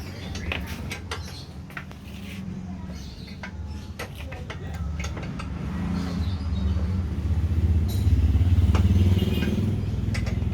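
Large floor polishing machine's motor running with a steady low hum that grows louder about six seconds in, with scattered sharp clicks and knocks of adjustment work on the machine.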